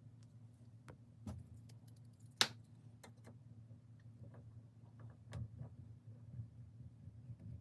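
Light metallic clicks and ticks of hand tools working steel, with one sharper click about two and a half seconds in, over a faint steady hum.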